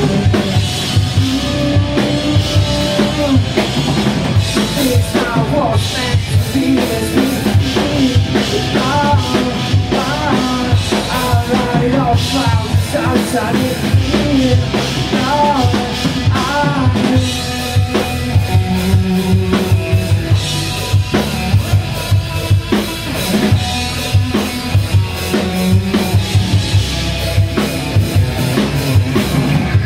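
Live band playing: a drum kit with kick and snare keeping a steady beat under a bass line and a lead melody whose notes bend and waver in pitch.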